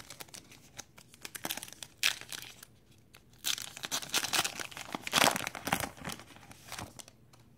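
Crinkly wrapper of a Topps Archives baseball card pack tearing and crackling as it is ripped open by hand. The crackles come in spurts and are busiest in the second half.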